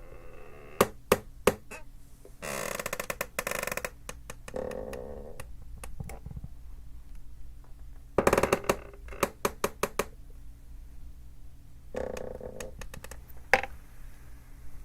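A creaky chair being shifted and rocked: sharp clicks and ticks from its joints between longer rasping creaks, the longest at about 2.5 s and 8 s in, with a shorter one near the end.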